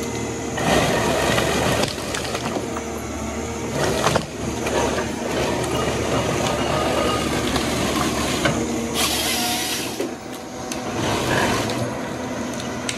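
John Deere 1270G forestry harvester's diesel engine running under load with its hydraulics working, while the harvester head fells and processes a pine. Several bursts of cracking wood and saw cutting break over the steady machine sound, the strongest about nine seconds in.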